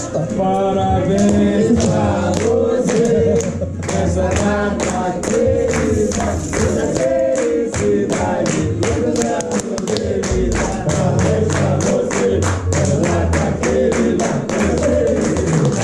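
A group of people singing together and clapping their hands in a steady rhythm.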